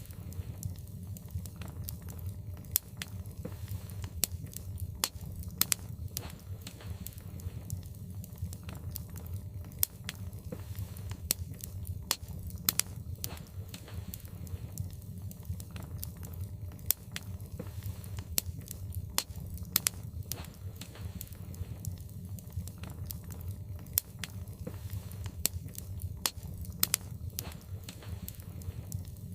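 Logs burning in a fireplace, crackling with sharp, irregular pops several times a second over a low, steady rumble.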